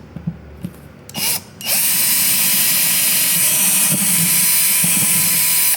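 Electric drill boring holes through a workbench table top for the lathe's mounting bolts. It gives a short burst about a second in, then runs steadily with a constant whine for about four seconds before stopping suddenly.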